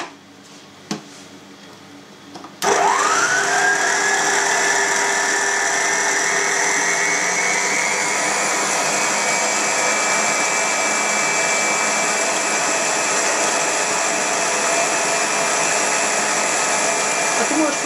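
Electric stand mixer's motor switched on about two and a half seconds in, its whine rising as it spins up, then running steadily as the beater works diced pork back fat into sticky minced beef for dry-cured sausage. A light click about a second in comes before the motor starts.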